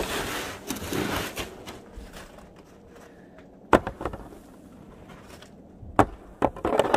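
Snow shovel scraping through packed snow for the first second or so, then two sharp knocks, about four and six seconds in, as the shovel blade strikes a corrugated metal roof.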